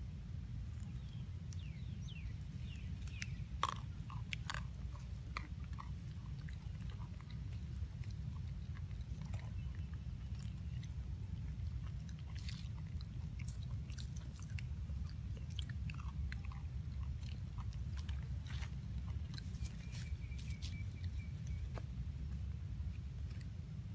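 Long-tailed macaque chewing and crunching food close to the microphone: irregular crisp clicks and crackles, the sharpest about three and a half seconds in, over a steady low rumble.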